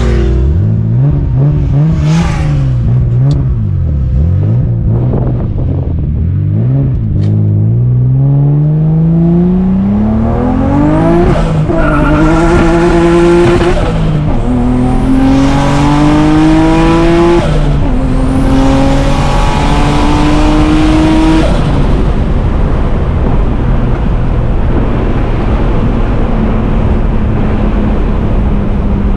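Turbocharged BMW M50 inline-six in an E36 making a full-throttle pull: a few throttle blips, then revs climbing through four gears with quick upshifts, a faint high turbo whistle rising with each gear, then easing off to a steady cruise for the last several seconds.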